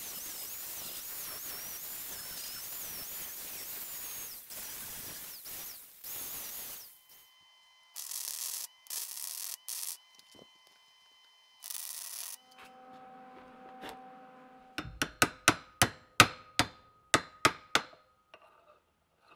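Angle grinder cutting steel held in a vise, its high whine wavering for about seven seconds. A few short bursts of arc welding follow. Near the end comes a quick run of about a dozen sharp hammer blows on metal, about three a second.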